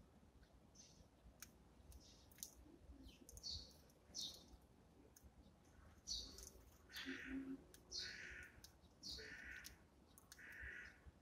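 Eurasian tree sparrows giving short high chirps, with sharp clicks of a beak pecking at a plastic feeding dish. From about seven seconds in, four longer, lower calls sound in turn.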